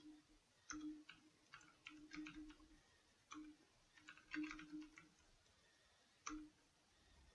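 Typing on a computer keyboard: faint, irregular key clicks in short runs, ending with a single click about six seconds in.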